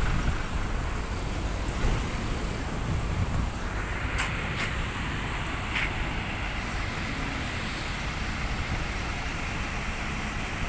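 Roadside traffic noise with a large diesel bus engine running close by, a steady low rumble. A few short faint clicks around four to six seconds in.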